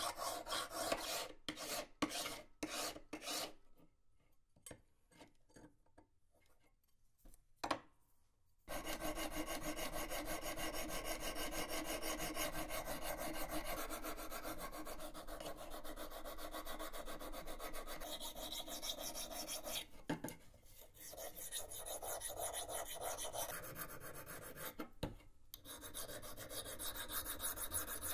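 A hand file scraping over steel in separate strokes, then a pause, then a long run of fast, even rubbing strokes as a small file is worked along the edge of a steel knife blade, with two brief breaks.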